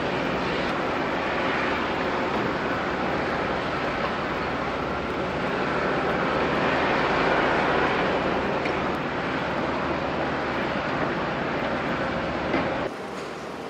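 Heavy diesel plant machinery running: the steady, loud noise of excavator and screening-plant engines working material. It drops abruptly to a quieter machine hum near the end.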